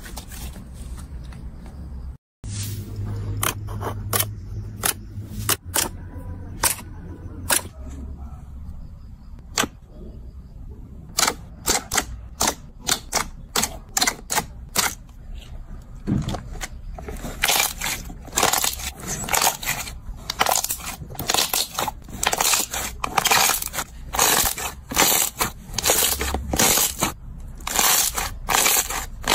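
Slime being squeezed and pressed by hand, giving sharp crackling and popping clicks over a low hum. The clicks come sparsely at first and turn dense and louder about halfway through.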